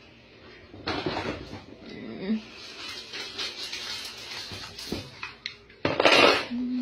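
Hands digging banknotes and coins out of a broken piggy bank: paper bills rustling and crinkling irregularly, with the loudest rustle about six seconds in.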